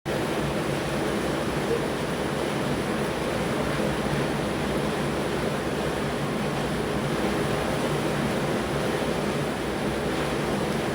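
Rain falling steadily, an even unbroken noise.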